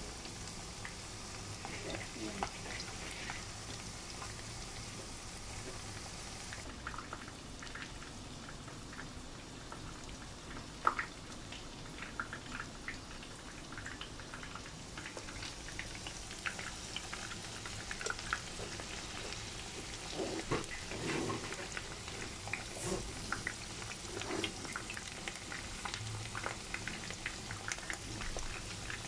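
Battered pork chops deep-frying in hot oil in a pan: a steady sizzle with scattered crackles and pops.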